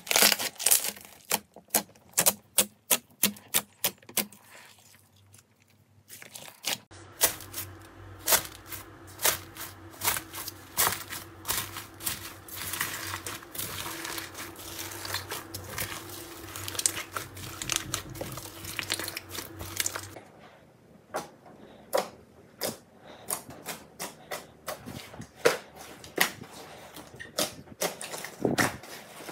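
Slime being squeezed and kneaded by hand, giving a fast, irregular stream of sticky clicks and pops. There is a short lull about five seconds in, and a low steady hum under the middle stretch.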